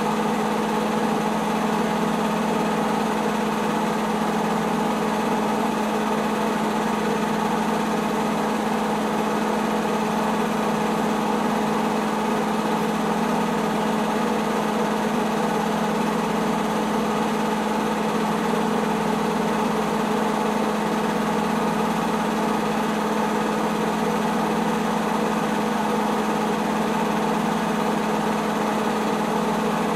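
Film projector running with a steady, unchanging mechanical hum.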